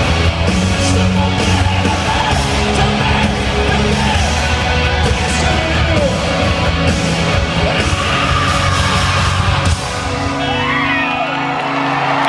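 Live rock band playing loudly in an arena, with drums, distorted guitars and singing, recorded from the audience with yelling in the crowd. About ten seconds in the drums stop and the band holds a ringing chord with sliding notes over it.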